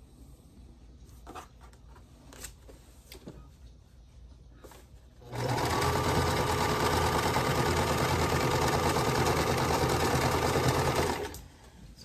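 Singer Start domestic sewing machine running a seam at a steady speed, starting about five seconds in and stopping shortly before the end. Before it, faint soft ticks of fabric being handled.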